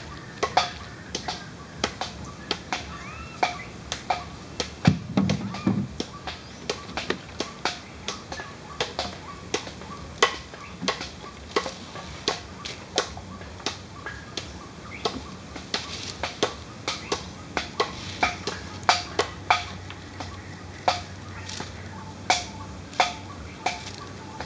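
Irregular sharp clicks and snaps, roughly one or two a second, with a short low rumble about five seconds in.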